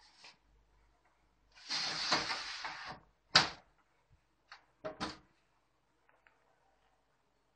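The paper cassette of a Sharp AR-6020D photocopier slides shut with a second-long scraping rattle and ends in a sharp knock as it seats. About a second later come three quick plastic clicks as the machine's front cover is pulled open.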